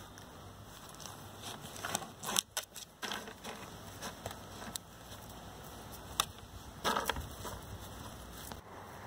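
Rottweiler puppies about five weeks old playing and scrambling over fleece mats and toys: scattered light knocks, crackles and rustles, the loudest clustered about two to three seconds in and again around six and seven seconds in.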